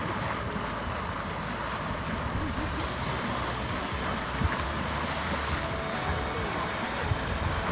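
Hot mud churning and sloshing in the steaming crater of Yellowstone's Mud Volcano, a steady rushing sound with a couple of thumps.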